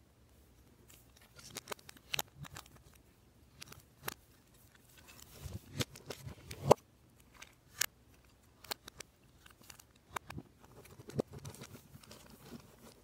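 Lego Technic plastic parts being handled and pressed together: irregular clicks and snaps of pins and panels, with the sharpest snap a little past the middle.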